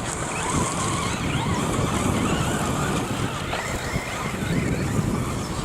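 Radio-controlled cars running on a track: electric motors whining up and down in pitch over a steady rushing noise.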